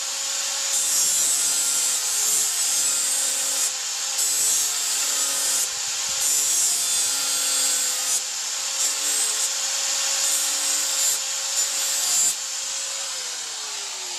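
Electric grinder sharpening the teeth of a brush-cutter's steel cutting disc: a steady motor hum under harsh metal grinding that rises and falls with each pass. Near the end the grinding stops and the motor's hum slides down in pitch as it is switched off and spins down.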